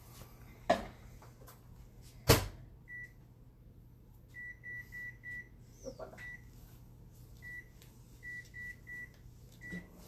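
A sharp thud about two seconds in, then the short high beeps of a microwave oven's keypad, about a dozen, singly and in quick runs of three and four, as the cooking time is keyed in.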